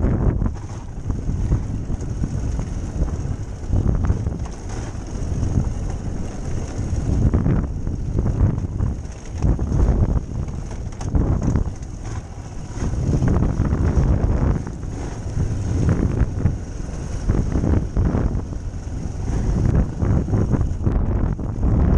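Motorcycle engine running under way on a rough dirt track, heard through heavy wind buffeting on a helmet-mounted microphone, the rumble rising and falling with frequent jolts from the uneven ground.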